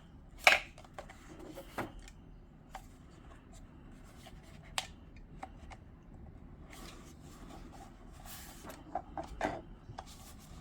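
Handling noises from a cordless mini chainsaw kit: a sharp click about half a second in, then scattered lighter clicks and knocks, with rustling later on.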